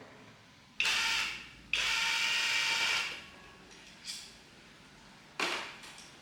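A power tool's motor whining in short bursts: two runs in quick succession about a second in, a brief blip near four seconds, and a shorter burst near the end.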